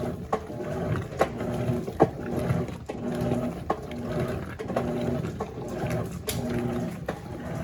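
Electrolux LF90 top-loading washing machine agitating during a towel pre-wash. The motor hums in short repeated strokes, about one a second, with sharp clicks between strokes.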